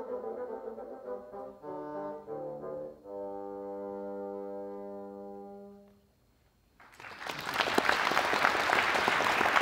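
Two bassoons play the closing notes of a duet and end on a long held chord that fades away. After a short silence an audience breaks into applause, growing louder.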